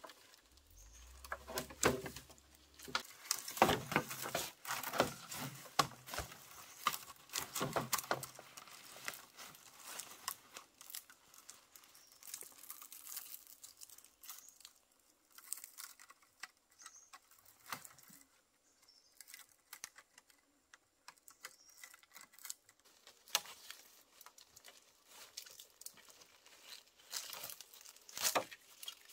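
Cut bamboo poles knocking together and dry leaf litter rustling as the poles are handled and tied into bundles. The knocks and rustles are thick for the first several seconds, then thin out to scattered clicks and a few single knocks.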